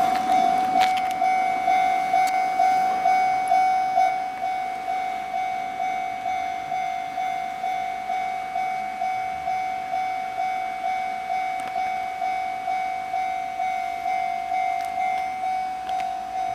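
Japanese railway level-crossing warning bell ringing, a repeated electronic clang at about two strikes a second, signalling that a train is approaching. It gets a little quieter after about four seconds.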